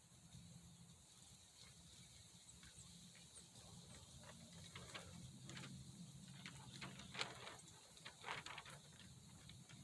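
Near silence with faint, irregular crackling and ticking from about four seconds in, growing denser, as the solder wrapped on a heating soldering iron tip starts to melt.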